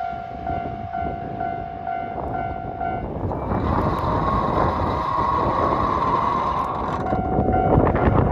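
A Japanese level-crossing bell ringing with a steady, even pulse. About three seconds in, a train running through on the Hakodate Main Line rises into a loud rush of passing noise that drowns the bell, with a steady high note over it.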